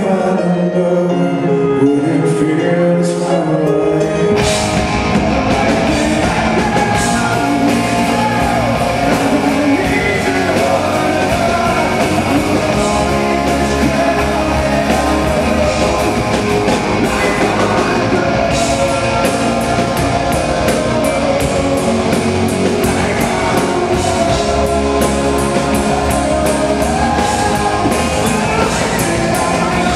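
Live rock band: a male lead singer with electric guitar, joined about four seconds in by drums and the full band.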